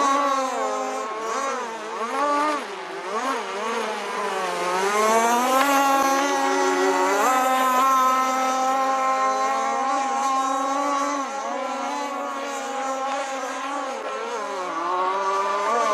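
Radio-controlled model boat motor running, its pitch rising and falling as the throttle is opened and eased, then holding fairly steady for several seconds before dipping again near the end.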